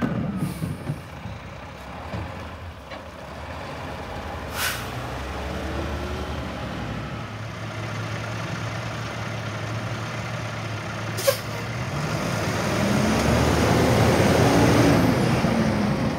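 Diesel engine of an International rear-loader garbage truck idling, with two short air-brake hisses. It then revs up and grows louder near the end as the truck pulls forward past close by.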